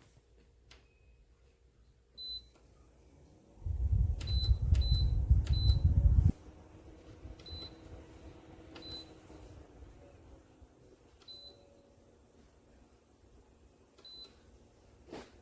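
Short high button beeps from a mini evaporative air cooler's control panel, some singly and a few in quick succession, each with a faint click. A loud low rumble comes in about three and a half seconds in and cuts off about two and a half seconds later.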